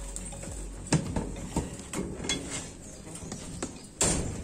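A few sharp knocks and clinks from work on a steel rebar mat, the loudest about a second in and another near the end.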